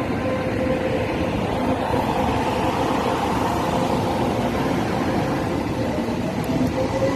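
Electric multiple unit train departing with its GTO-VVVF traction inverter whining over the steady rumble of wheels on rail. Near the end the motor tones begin to rise in pitch as the train accelerates.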